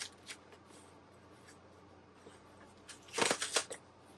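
Cardboard shipping box being pulled and torn open by hand: a few faint clicks at first, then a short burst of tearing about three seconds in.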